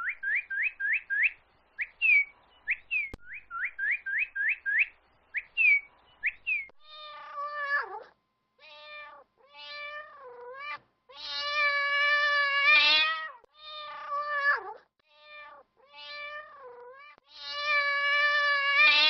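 Northern cardinal singing: two phrases of quick, rising whistled notes. It is followed by a domestic cat meowing about eight times, two of the meows long and drawn out.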